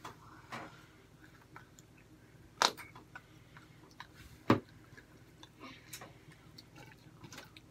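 Sparse small clicks and knocks of a fork and food containers handled at a table during a meal, with faint chewing. Two sharper knocks come about two and a half and four and a half seconds in.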